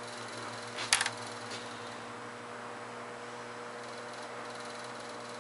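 Steady electrical mains hum under faint room noise, with one short sharp click about a second in as the cap comes off a small plastic tube of body-filler hardener.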